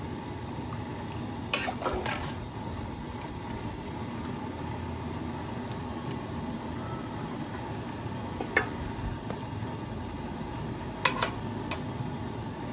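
Broth and rice boiling steadily in a large aluminium pot while a metal slotted spatula stirs. There are a few sharp clinks of the spatula against the pot, around 2 seconds in, once near the middle and once near the end.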